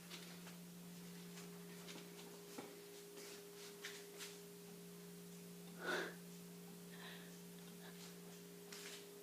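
Quiet room with a steady low hum, faint scattered ticks, and one short soft noise about six seconds in.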